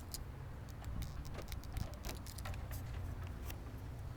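Handling noise from a handheld camera: scattered small clicks and rustles over a steady low rumble.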